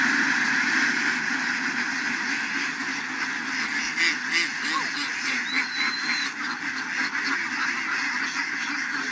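A large flock of hundreds of domestic ducks quacking all at once in a dense, continuous chorus, with a few louder quacks about four seconds in.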